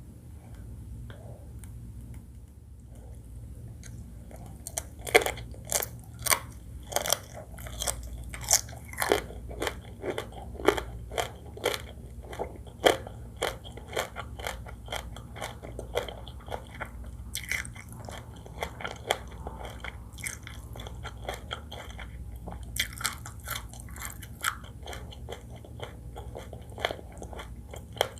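Close-miked eating of a seafood fried rice meal: chewing with crisp, crunching bites in quick, irregular clicks, starting about five seconds in.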